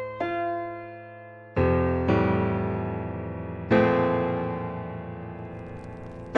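Slow, gentle solo piano music: single notes and chords struck every second or two, each ringing out and fading.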